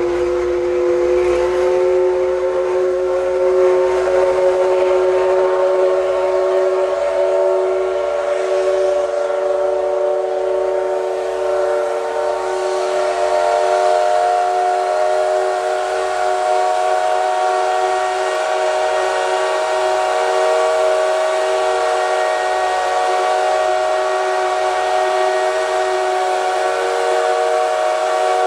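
Steam locomotive whistle held in one long, steady blast of several tones together, its pitch creeping slightly upward partway through. Underneath is a faint low pulsing, a little more than once a second.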